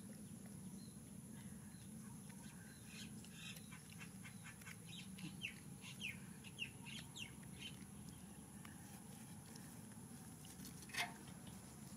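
Faint, quick high-pitched chirping calls, many in a row through the middle few seconds, over a steady thin high hiss, with one short sharp sound near the end.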